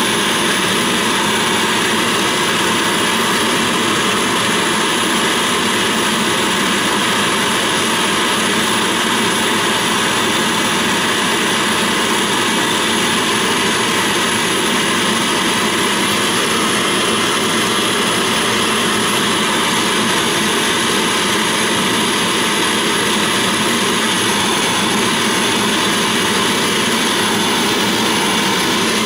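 Gas torch flame burning with a steady, loud, even rush, heating a copper boiler to silver-soldering temperature.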